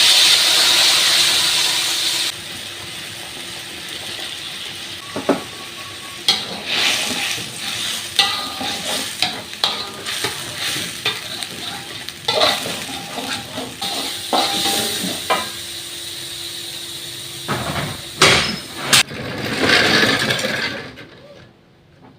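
Food frying in hot oil in a pan: loud sizzling for about two seconds that cuts off suddenly, then quieter sizzling with a spatula scraping and knocking against the pan as it stirs.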